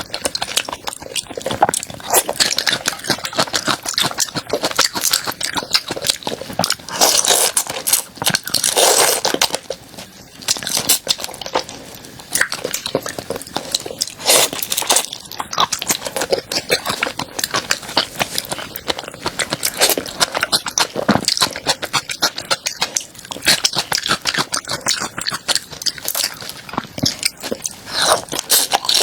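A person chewing crunchy food close to the microphone: a steady run of loud crisp crunches and crackles with each bite and chew.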